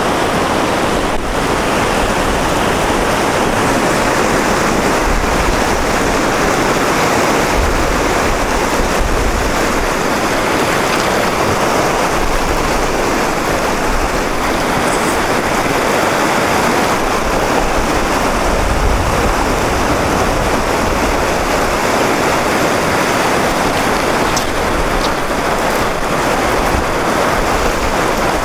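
Whitewater river rapids rushing in a steady, unbroken wash of water. The river is running high.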